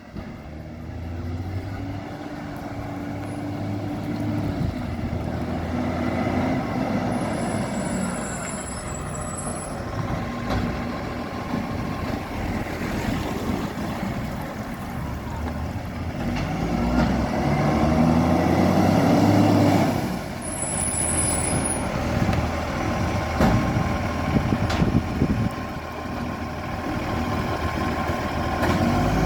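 Garbage truck's diesel engine running, revving up twice for several seconds each time, from a truck with an exhaust leak. Two short high-pitched squeals sound, during the first rev and just after the second.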